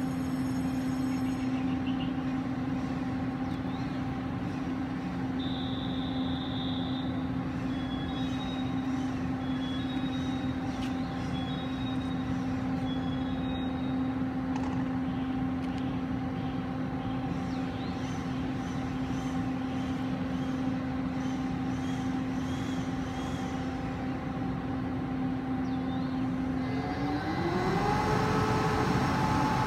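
Electric train power car of a Taiwan Railways E1000-series push-pull Tzu-Chiang express standing at the platform, its electrical equipment giving a steady hum. Near the end the hum climbs in pitch and grows louder as the traction equipment powers up for the train to pull away.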